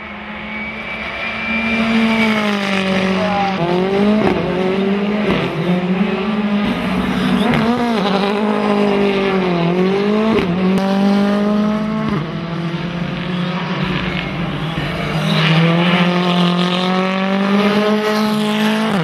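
Rally car engine revving hard as the car is driven through corners. The engine grows louder over the first two seconds, then its pitch repeatedly climbs and drops sharply with gear changes and lifts off the throttle.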